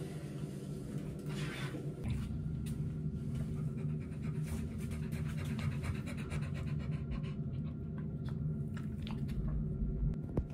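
American bully dog panting in a quick, even rhythm, over a steady low hum.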